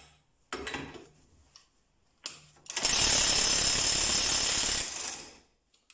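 Parkside 400 Nm cordless 1/2-inch impact wrench hammering for about two seconds to break loose a bolt torqued by a more powerful DeWalt; it takes a while before the bolt gives. A few short knocks come before it.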